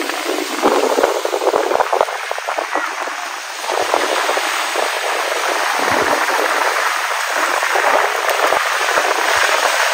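Small surf breaking and washing over the sand at the water's edge: a steady rush of water with a crackle of foam.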